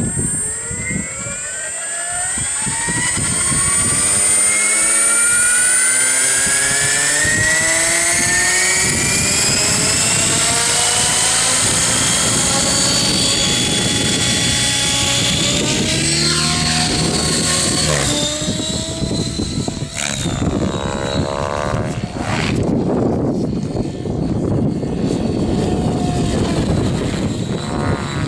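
700-size radio-controlled helicopter (Align T-Rex 700) converted from nitro to electric power, spooling up with a whine that rises steadily in pitch over the first ten seconds or so. It then runs at a steady whine with rotor noise as it lifts off and flies, the pitch and level shifting as it climbs and manoeuvres in the second half.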